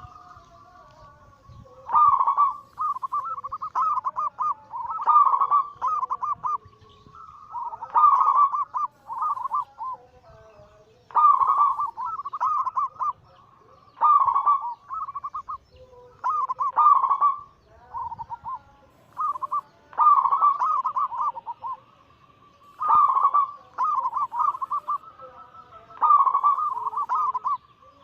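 Zebra doves (perkutut) cooing: a phrase of rapid, bubbling coos about every three seconds, with fainter lower coos between the phrases.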